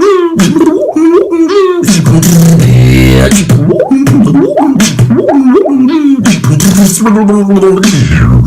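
Mouth beatboxing built on a vocal water-droplet sound: quick pitched bloops that bend up and down, mixed with sharp clicks and knocks. About two seconds in, a low buzzing bass note is held for a second or so.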